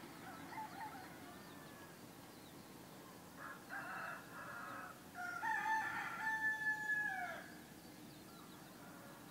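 A rooster crowing: one long crow about five seconds in that holds its pitch and drops away at the end, after a shorter call a little earlier and fainter calls near the start, over a steady low background hum.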